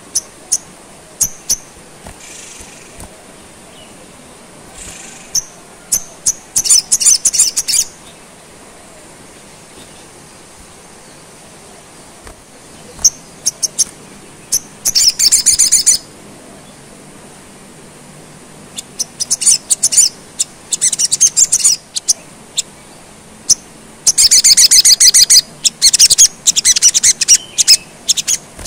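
Caged male olive-backed sunbird (sogon) singing: sharp, high single chips, then four bursts of fast rattling trills, the longest near the end. The song carries learned phrases copied from a woodpecker (isian Pelatuk Sampit).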